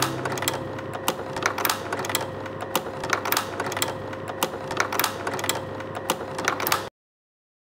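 Slide projector running: a steady hum under irregular mechanical clicking and clacking, about two or three clicks a second, cutting off suddenly near the end.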